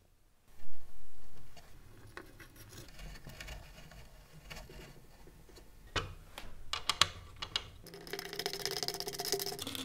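Threaded insert being screwed into the end grain of a wooden leg with a hex key. A knock about half a second in, then scraping and creaking as the threads cut into the wood, a run of sharp clicks around six to seven seconds in, and a louder squealing creak in the last two seconds.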